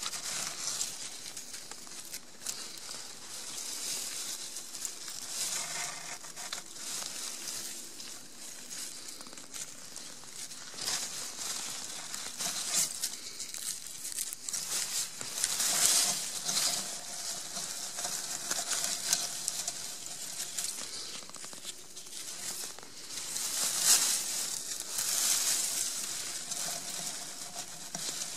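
Dry grass and leaf litter rustling and crackling close to the microphone as hands push through it, with louder spells about halfway through and again near the end.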